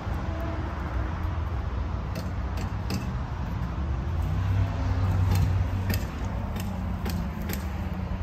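Flatbed pickup truck's engine idling steadily, with a few light metallic clicks scattered over it.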